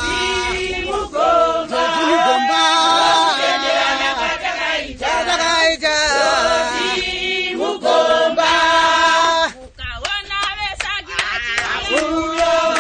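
A group of women singing a song together, a village song pledging to use latrines, with a short break in the singing about ten seconds in.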